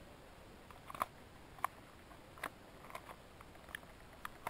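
Slow, cautious footsteps through dry fallen leaves and brambles, giving about six separate sharp crackles and twig snaps at irregular intervals.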